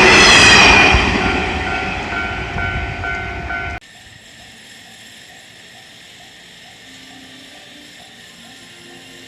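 A 221 series electric train passing over a level crossing, its loud rumble fading over about four seconds while the crossing bell rings. The sound then drops off abruptly to a much quieter stretch with a faint tone repeating about twice a second.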